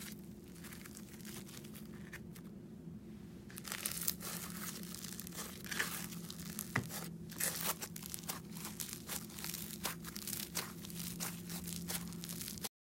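Micro floam slime, slime packed with tiny foam beads, squeezed and stretched by hand, giving a dense run of crispy crackling and crunching. It is faint at first and gets louder and busier about four seconds in.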